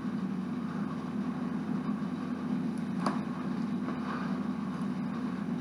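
A steady low hum throughout, with a few faint clicks of small plastic Lego pieces being handled and pressed together, the clearest about three seconds in.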